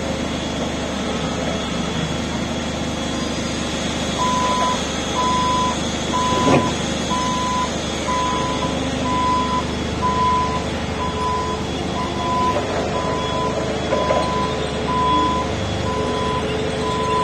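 Forklift warning beeper sounding a steady beep of one pitch, a little more than once a second, from about four seconds in, over the forklift's running hum. A single knock sounds about six seconds in.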